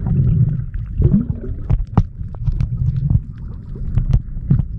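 Underwater sound through a submerged action camera's waterproof housing: a low, muffled rumble of moving water with many scattered clicks and pops.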